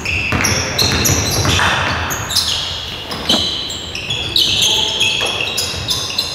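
Basketball game in play on an indoor hardwood court: a ball bouncing on the floor and many short, high-pitched sneaker squeaks, echoing in the hall.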